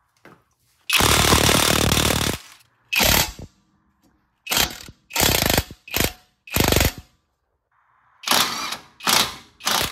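Klutch KLiQ 20-volt brushless 1/2-inch impact wrench hammering on car suspension bolts in trigger bursts: one long run of about a second and a half, then about eight short bursts, several in quick succession near the end.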